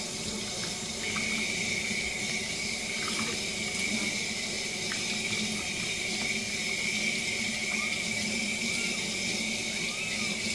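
Kitchen faucet running steadily into a stainless steel sink, the stream splashing over hands and a wet kitten being rinsed under it.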